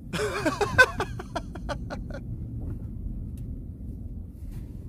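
Steady low rumble of a GMC Yukon XL's cabin while driving, with the windows closed. A brief voice-like sound comes in the first two seconds.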